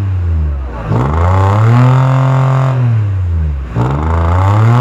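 Off-road buggy's engine revved hard again and again under heavy load, its pitch climbing, holding about two seconds, then dropping, as it tries to drive up a steep dirt bank out of water.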